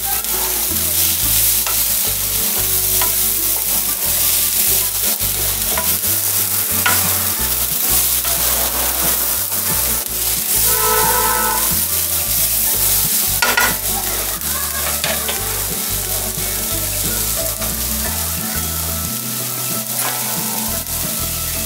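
Red lentils with sliced onion and green chillies frying in mustard oil in a nonstick kadai: a steady sizzle. A spatula scrapes and stirs through the dal against the pan for most of it.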